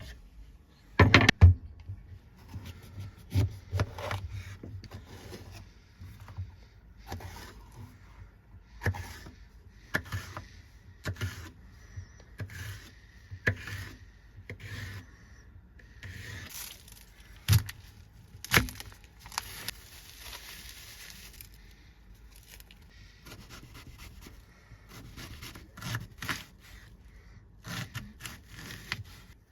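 Knife chopping vegetables on a chopping board: irregular knocks and scrapes, with a few louder knocks about a second in and around two-thirds of the way through.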